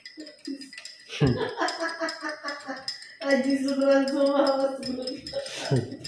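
A man's voice sung in long held notes, a short tune rather than talk, with a few light clinks of a spoon against a glass.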